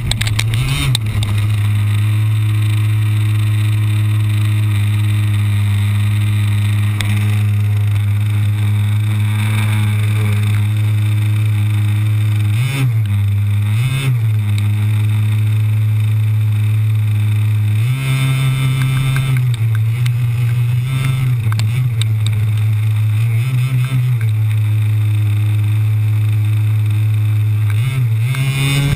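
Small engine of a radio-controlled car running up close to an onboard camera, mostly a steady drone, with brief changes in pitch a little before halfway, again a few seconds later, and near the end.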